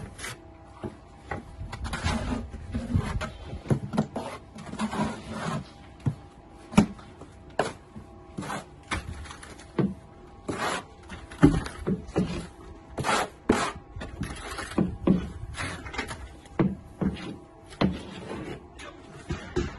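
A steel plastering trowel is spreading and pressing mortar onto metal lath. The strokes come as irregular scrapes and sharp clicks, some of them loud, as the blade meets the lath and the mortar hawk.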